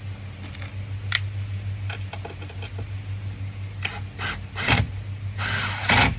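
Screws being driven into the van's bench panel with a power drill-driver: a steady mechanical whirring with scattered clicks, and a longer, louder run of the driver near the end.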